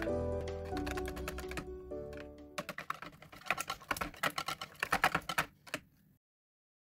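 Background music fading out, then a wire whisk beating eggs in a bowl: fast, irregular clicking of the whisk against the bowl for about three seconds, cutting off suddenly near the end.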